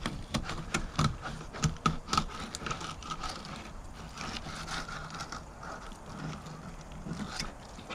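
Knife cutting a fillet off a crappie, cutting through the rib bones to take the ribs off with the fillet: a run of irregular short clicks and scrapes of the blade against the bones and the plastic table.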